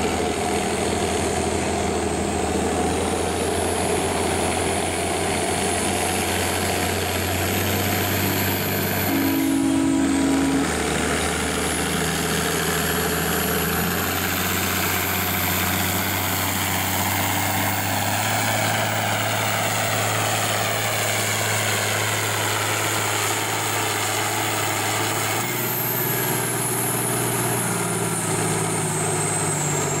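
A farm tractor's diesel engine running hard under full load as it drags a weight-transfer pulling sled, its pitch stepping up and down a few times, with a thin high whistle that rises and falls. A short two-tone sound comes about a third of the way in.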